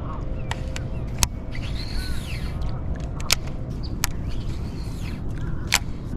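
Outdoor ambience: a steady low rumble with several sharp clicks spread through it, and a single arching bird call about two seconds in.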